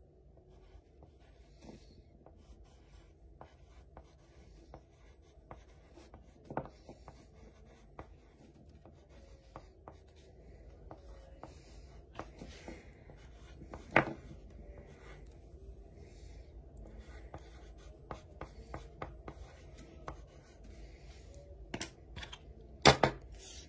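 Wooden pencil writing on a sheet of paper: faint, continuous scratching strokes, with a few sharper ticks of the pencil, the loudest a little past halfway.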